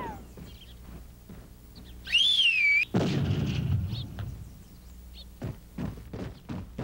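A high, wavering whistle, cut off about three seconds in by a gunshot blast whose rumbling tail dies away over about a second; a few soft knocks follow near the end.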